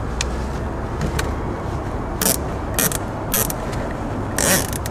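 Nylon zip tie being pulled through and tightened around a cable in about half a dozen short rasping pulls, the longest near the end, over a steady low wind rumble.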